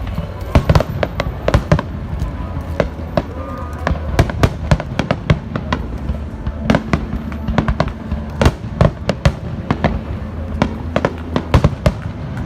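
Fireworks finale: a rapid, overlapping barrage of shell bursts and crackling bangs, several a second, over a continuous low rumble.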